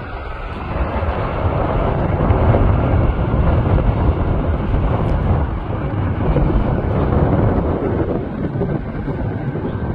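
Boeing 787 airliner departing under jet engine power: a loud, steady rumbling roar that builds over the first two seconds and eases a little near the end, with wind buffeting the phone's microphone.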